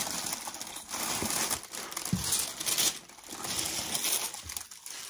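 Tissue paper rustling and crinkling as it is handled and folded back by hand, in several irregular spells.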